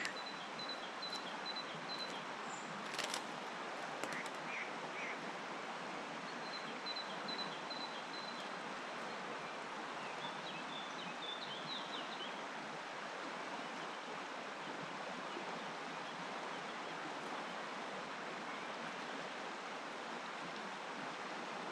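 River water flowing with a steady rushing hiss. Bird chirps come in short high runs in the first half, and a few sharp clicks sound about three seconds in.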